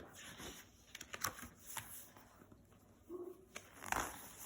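Paper pages of a picture book being handled and turned: soft rustles with a few light taps and clicks.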